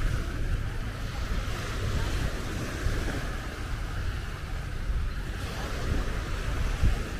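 Surf washing onto a beach, with wind buffeting the microphone in an uneven low rumble.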